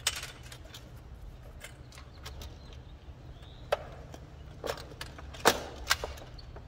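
Ford C-Max lithium battery cells being set down on a plywood board and butted against each other: a few sharp, separate clacks, the loudest about five and a half seconds in, over a low steady hum.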